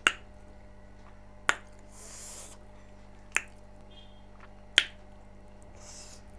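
Mouth noises of someone eating pork curry: four sharp, loud smacks about one and a half seconds apart.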